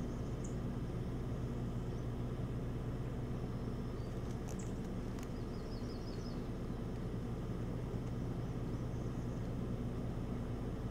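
Steady low outdoor rumble with a faint hum on the nest camera's microphone, and a few faint high chirps from small songbirds, including a quick run of about five short rising chirps around the middle.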